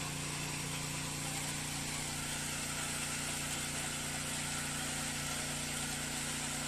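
A walk-behind rotary tiller's small engine running steadily as the machine tills the soil.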